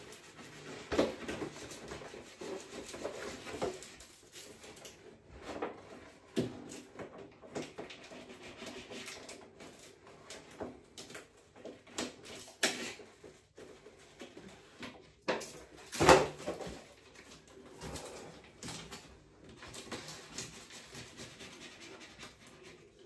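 Rustling and crinkling of wall-sticker sheets as the backing paper is peeled off and the stickers are rubbed onto the wall, in irregular bursts, with a sharp knock about sixteen seconds in.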